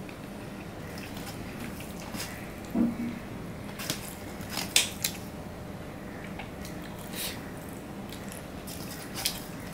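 Hand-eating sounds: fingers mixing rice on a stainless steel plate, along with chewing, giving scattered short clicks and smacks. The sharpest comes about five seconds in.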